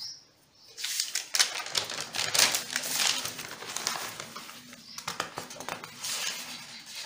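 Large sheets of paper rustling and crackling as pages are turned over by hand, starting about a second in.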